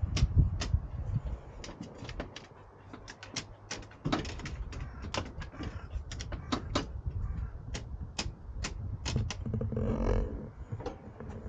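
A border collie's claws clicking on wooden deck boards as it walks, a quick, uneven series of sharp taps, over a low rumble.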